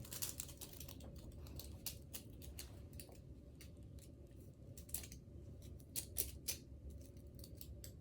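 Faint, irregular small clicks and taps of objects being handled, like a small gift being fiddled with or unwrapped, with a few louder clicks scattered through.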